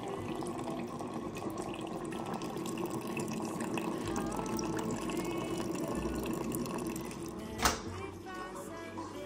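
Hot water running from a countertop hot-water dispenser into a ceramic mug in a thin steady stream, filling it over coffee granules. A single sharp click sounds near the end.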